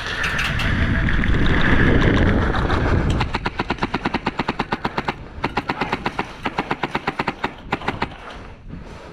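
Loud low rushing noise on the microphone, then about three seconds in an airsoft gun starts firing rapidly, about six to seven shots a second, in two long strings with a short break between them.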